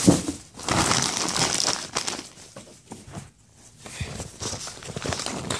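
Paper and plastic packaging crinkling and rustling as unboxed items are pushed aside, with a sharp knock right at the start and a denser burst of crinkling in the first two seconds before it thins to scattered rustles.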